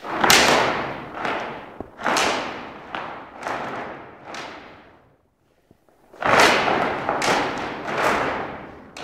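Large cloth flags being swung hard, about nine sharp swishes and snaps, each ringing on in the echo of a large hall, with a brief pause a little after halfway.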